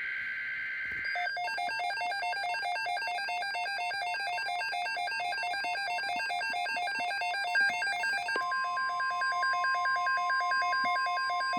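Emergency Alert System tones from a NOAA Weather Radio broadcast: the tail of a digital data burst ends about a second in, then a rapid electronic warble of alternating pitches repeats steadily. About eight seconds in, a steady single-pitch alert tone joins the warble.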